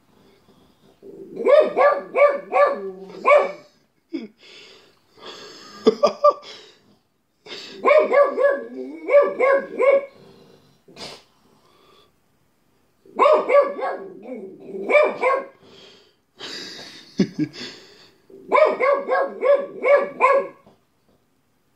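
Pug barking in quick runs of four or five barks, about four runs with short pauses between them.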